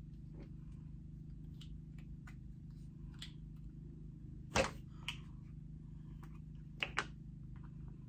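Light clicks and taps from handling a small green plastic lip mask jar, with a sharper click about four and a half seconds in and a quick double click near the end, over a steady low hum.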